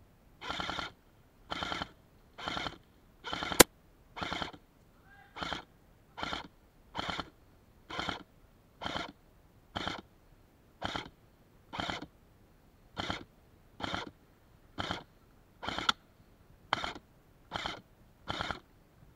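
Heavy, rhythmic breathing close to the microphone, about one breath a second, the panting of someone out of breath. A single sharp click about three and a half seconds in.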